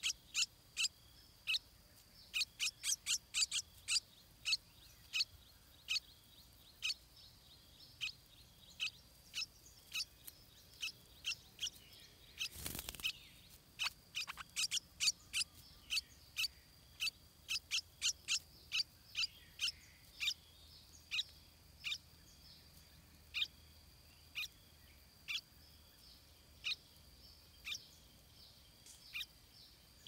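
Stripe-throated bulbuls at the nest giving short, sharp calls close by, each falling steeply in pitch, in quick runs of several a second with pauses between runs. A brief rustle of movement comes about halfway through.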